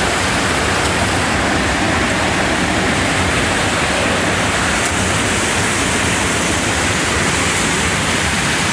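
Creek water rushing steadily over rocks, a loud even hiss with no break.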